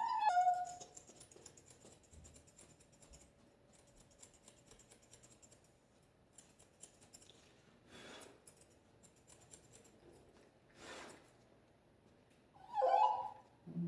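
Grooming shears snipping through a schnauzer puppy's coat: quiet runs of quick small clicks that die away about halfway through, followed by two short soft rustling sounds.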